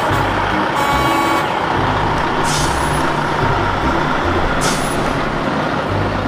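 Heavy wrecker tow truck driving past, its diesel engine running with a steady low rumble, and two short air-brake hisses about two and a half and four and a half seconds in.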